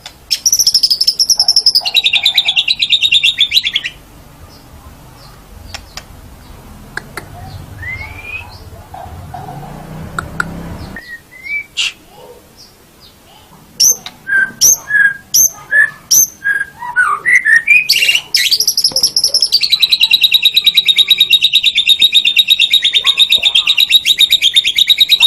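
White-rumped shama (murai batu) singing: a long, fast rattling trill, then a quieter pause, then a run of separate clear whistled notes, then another long fast trill.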